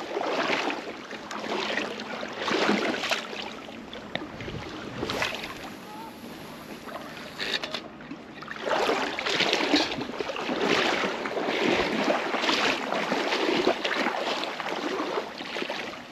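Small waves lapping at the pond's edge with wind on the microphone, a rough wash that swells and fades in uneven surges about once a second.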